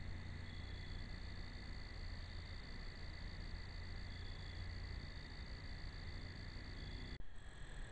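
Night insects, crickets or similar, trilling steadily at several high pitches over a low steady hum, as picked up by a trail camera's built-in microphone. The sound drops out for an instant about seven seconds in, then the same trilling carries on.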